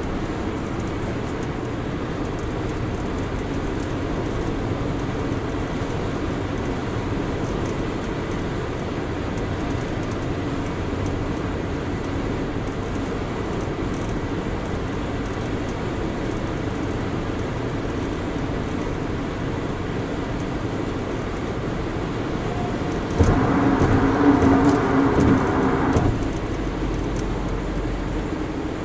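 Road noise inside a car cruising on a highway: a steady rush of tyres and engine. About 23 seconds in, a sudden louder rumble with a hum sets in, lasts about three seconds, then settles back to the steady rush.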